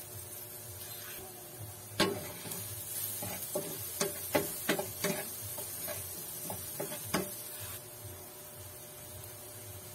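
Wooden spatula stirring chopped onion and garlic in a black frying pan, knocking and scraping against the pan about a dozen times between two and seven seconds in, the first knock the loudest, over a faint sizzle.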